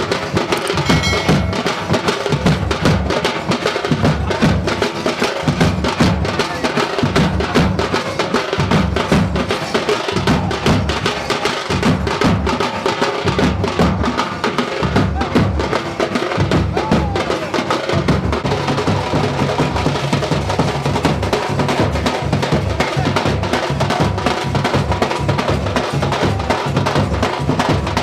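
Loud music with a heavy, steady drum beat.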